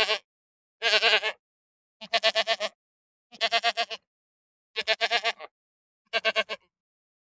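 Sheep bleating over and over: a run of short, quavering baas, about one every second and a quarter, with silence between them.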